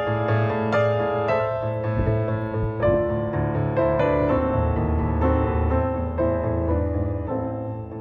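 Background piano music: a slow melody of single notes over held low notes.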